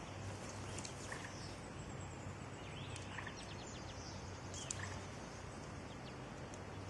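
Faint outdoor ambience: a steady low background hum and haze, with a short run of high bird chirps about three seconds in and a single light click just before five seconds.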